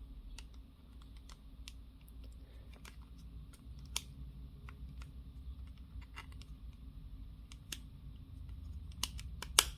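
Small plastic model-kit pieces of a Bandai Ultimagear Millennium Puzzle being handled and fitted together: scattered light clicks and taps, then a sharper snap near the end as a piece clicks into place.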